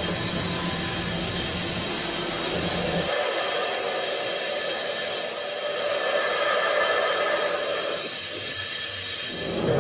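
Mazak Variaxis i-800T five-axis machining centre milling the teeth of a large bevel gear: a steady hissing whir of the spindle and cutting tool, without pause.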